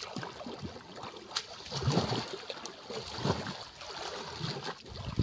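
Water splashing and sloshing in a full canal as people wade and swim hauling a fishing net, beating the water to drive fish out of brush piles toward the net. The splashing is irregular, heavier about two seconds in and again a little after three seconds.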